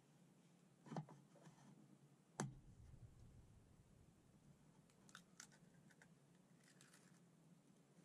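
Small clicks and taps of eggs being handled and one cracked into a plastic bowl: a tap about a second in, a sharper knock about two and a half seconds in, then a cluster of light clicks as the shell is cracked and pulled apart.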